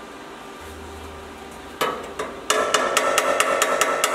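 A hammer tapping the thin steel repair panel at the welded joint of an Alfa Romeo Giulia door frame: one knock about two seconds in, then a fast run of light taps, about six a second, with a metallic ring. The hammering brings the panel flush with the frame between weld spots.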